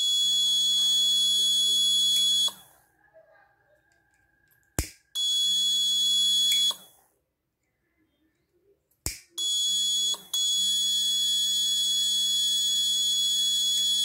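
Piezo buzzer of an Arduino flame-sensor fire alarm sounding a steady high tone in three bursts: about two and a half seconds, then about a second and a half, then about five seconds with a brief break early in it. A lower hum, typical of the small DC water pump the alarm switches on, runs under each burst, and a sharp click comes just before each one.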